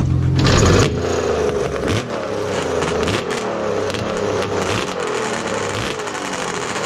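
Two-stroke triple-pipe snowmobile drag-racing engine running at standstill, its pitch wavering up and down as the throttle is blipped. A steady low hum drops away about a second in.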